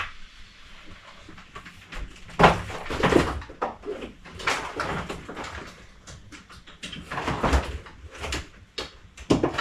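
Household items being picked up, moved and set down on a wooden dresser: a string of irregular knocks, clunks and rustles.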